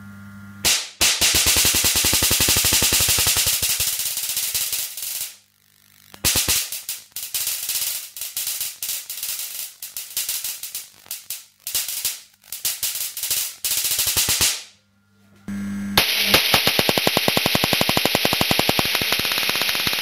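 High-voltage stun-gun discharges driving a microwave-oven magnetron, snapping in a rapid crackling train of sharp cracks in two long runs with a short pause between them. A low mains hum from the oven transformer heating the magnetron's filament sits under the start. Near the end the crackling goes on over that hum and a steady interference hiss.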